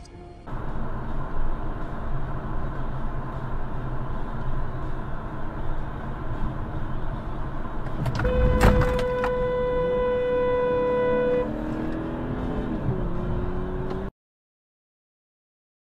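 Car driving, with steady road and engine noise, then a car horn held for about three seconds, starting about eight seconds in with a brief knock. The horn is a warning at a pickup truck moving into the car's lane.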